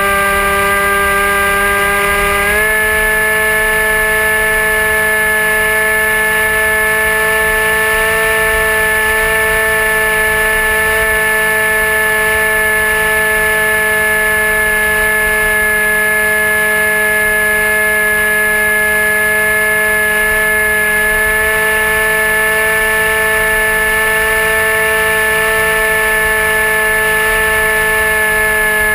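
Electric motor and propeller of a Dynam Hawk Sky RC plane whining steadily, heard up close from the onboard camera. The pitch steps up slightly about two and a half seconds in as the throttle is opened a little, over low wind rumble.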